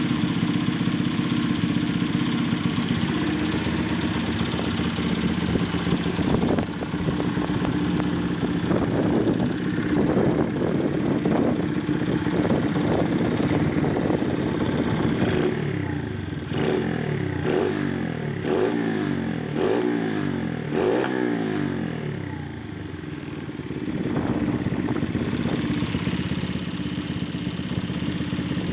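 Honda Monkey's small single-cylinder four-stroke engine idling, then blipped several times in quick succession from about halfway, each rev rising and falling, before it settles back to idle.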